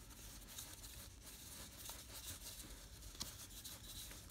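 Faint rustle and light ticks of a stack of paper baseball cards being leafed through by hand, card sliding against card, with a slightly sharper click about three seconds in.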